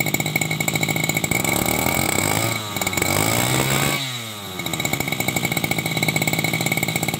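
TASCO two-stroke brush cutter engine running, with rapid firing pulses. Its pitch climbs and falls back between about two and four seconds in, then it settles to a steady run.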